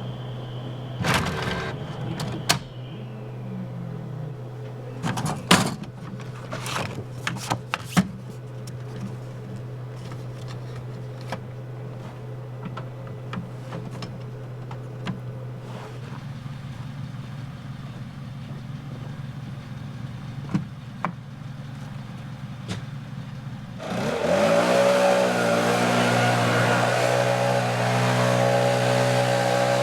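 A motor engine starts about six seconds before the end, its pitch rising as it catches and then settling into a steady run. Before that, a low steady hum with scattered clicks and knocks.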